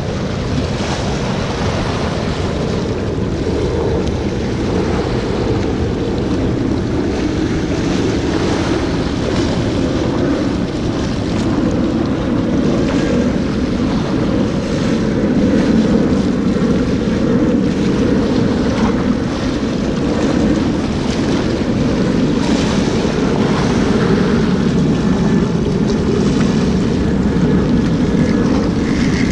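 Wind buffeting the microphone over surf washing against the jetty's rocks, a loud, steady rush with no breaks.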